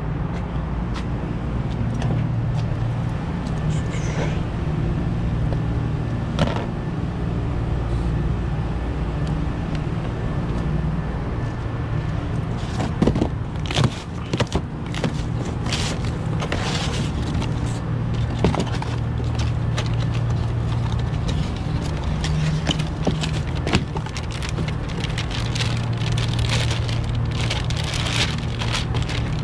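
Steady low hum of rooftop HVAC equipment running. Over it, a cardboard box is cut open and its packing handled, with sharp clicks and crackling from about halfway in, and a foil anti-static bag crinkles near the end.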